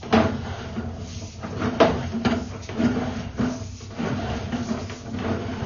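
Sewer inspection camera push cable being worked back and forth against roots at a separated joint in a cast-iron drain line. It makes irregular knocks and rattles, a few sharp ones louder than the rest, over a steady low hum.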